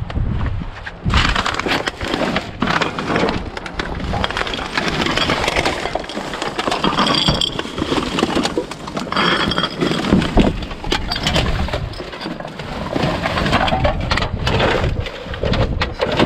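Someone rummaging through discarded junk and scrap: a dense, irregular run of knocks, clacks and clinks as hard items are shifted, knocked together and pulled about.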